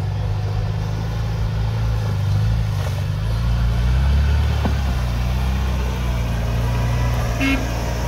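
Off-road vehicle engine running at low revs as it crawls along, its pitch rising a little and falling again.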